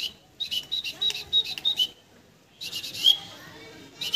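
A whistle blown in a quick run of short high blasts, then after a pause one longer blast that rises at its end about three seconds in: a pigeon keeper's call to bring his pigeons to him.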